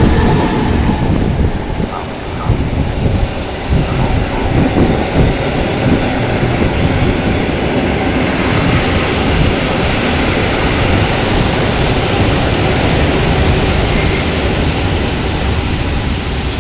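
Passenger train hauled by a Bombardier TRAXX electric locomotive rolling out of a station at low speed: a steady rumble of wheels on the rails. A thin, high wheel squeal sets in near the end.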